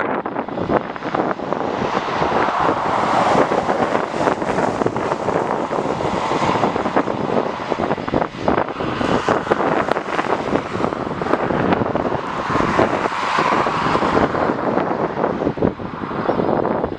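Airliner jet engines running loud and close. The roar swells about three seconds in and again near thirteen seconds.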